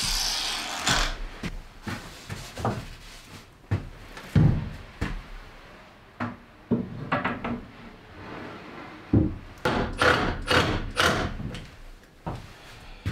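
Long wooden lamination strips being handled and dry-fit onto deck beams: scattered knocks and thuds of wood on wood, with a quick run of knocks near the end. A power tool runs down in the first second.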